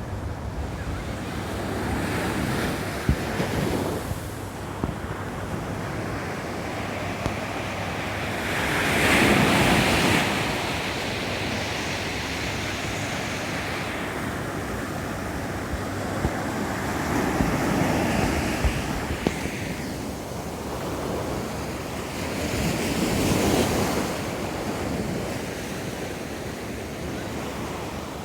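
Ocean waves breaking and washing up a beach in about four slow surges, the loudest about nine seconds in, over wind rumbling on the microphone.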